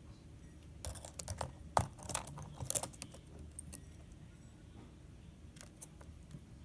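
Computer keyboard keys being pecked and pried at by a pet bird's beak: a quick flurry of plastic clicks and rattles starting about a second in and lasting about two seconds, then a few scattered clicks near the end.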